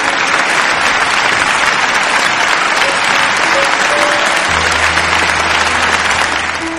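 Dense applause from a crowd, loud over quieter background music; a low steady bass note comes in about two-thirds of the way through.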